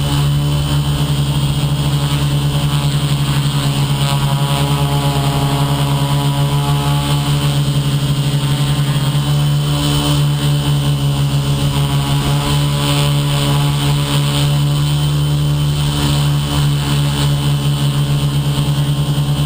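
The motor and propeller of an FPV model aircraft running at a steady speed in flight, making a loud, even buzzing drone that holds one pitch throughout.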